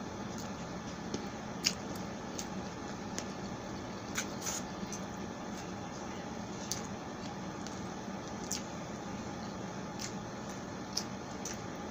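Close-miked chewing of pork sisig and rice, with scattered short, wet mouth clicks and smacks over a steady background hiss and hum.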